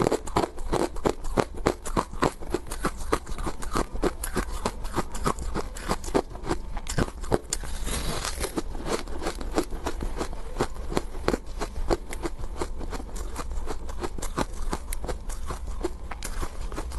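Ice being bitten and chewed: a dense, irregular run of sharp crunches and cracks, with a longer grinding crunch about eight seconds in.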